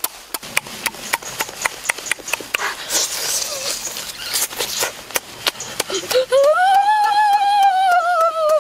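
A boy eating cooked squid: wet lip smacks and chewing clicks, with a breathy blowing and sucking stretch partway through. About six seconds in, a long high-pitched 'ooh' voiced through pursed lips that rises, then slowly falls with a slight wobble.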